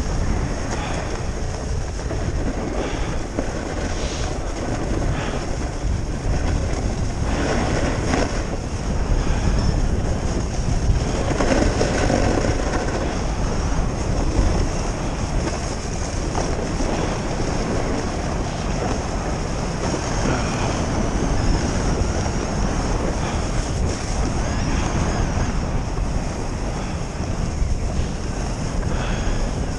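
Wind noise on the microphone of a skier's camera during a descent, over the steady hiss and scrape of skis sliding and turning on groomed packed snow. The noise swells a few times as the skis bite into turns.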